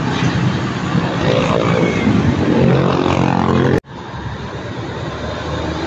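Heavy trucks passing on a road, a tractor unit's engine running loudly with a steady engine tone. About four seconds in the sound cuts off abruptly, then resumes quieter as another truck drives by.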